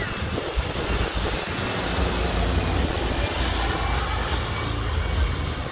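Small twin-engine propeller plane passing low overhead on landing approach: a steady engine and propeller drone, with a faint high whine that drops slightly in pitch as it goes by.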